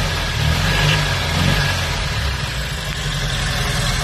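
Honda N600/Z600's small air-cooled two-cylinder engine idling on its freshly rebuilt carburetor with new O-rings, running steadily.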